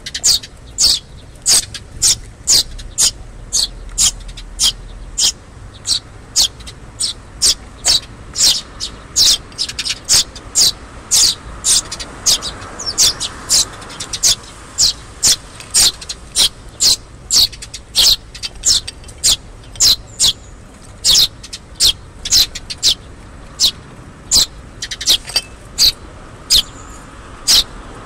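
Eurasian tree sparrow fledglings begging to be fed: short, sharp, high-pitched chirps repeated evenly about twice a second.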